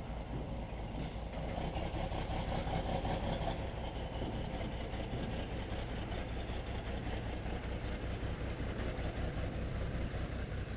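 Nissan Diesel/UD truck's diesel engine running steadily at a low, even speed with a fast regular pulsing, like an idle.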